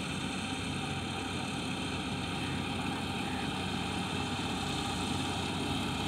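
Rice combine harvester's engine running with a steady drone while it cuts the crop.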